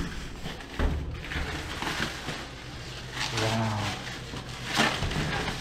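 Plastic wrapping crinkling and rustling as it is pulled off a new rubber snowmobile track, with a thump about a second in.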